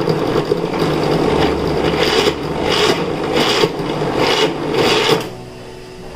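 Small food-processor jar's motor grinding through an overfilled, sticky load of pitted dates, straining, with a harsher surge about every 0.7 s. It runs about five seconds, then stops.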